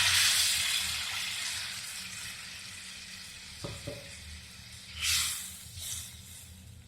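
Fried masala and oil sizzling in a pan after water is added. The sizzle is loud at first and dies down over the next few seconds. There are a couple of light knocks about four seconds in and short bursts of sizzle about five seconds in.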